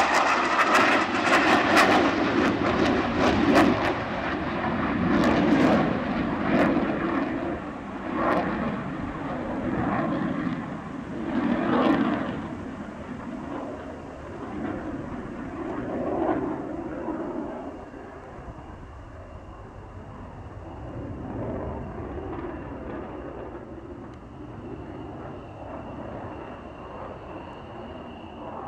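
Saab J35 Draken fighter's jet engine passing overhead, loud and crackling at first, then fading in uneven swells as the jet flies away.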